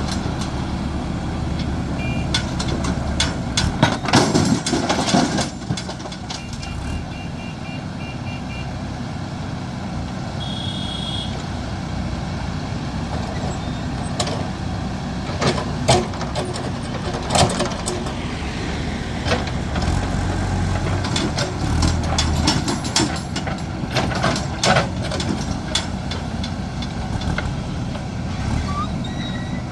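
A backhoe loader's diesel engine and other heavy vehicles running steadily, with repeated metal knocks and clanks and a few short beeps.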